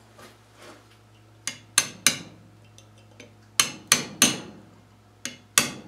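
Hammer striking a punch to tap a seal and steel washer down into the bore of a Rover 3500 steering box housing, to seat them. Sharp metallic blows with a short ring: three quick blows, a pause, three more, a pause, then two.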